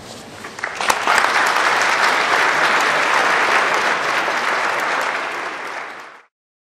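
Audience applauding: a few scattered claps swell within about a second into full, dense applause, which cuts off abruptly near the end.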